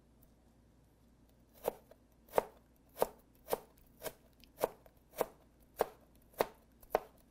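Knife chopping young galangal into thin matchsticks on a plastic cutting board: an even run of about ten chops, roughly two a second, starting about a second and a half in.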